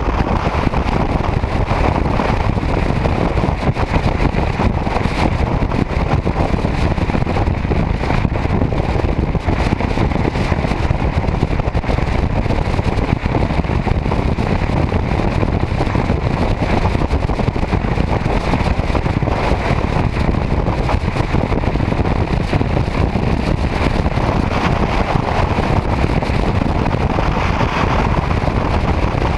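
Motorcycle cruising at highway speed: a steady rush of wind and road noise, with the engine running underneath, unchanging throughout.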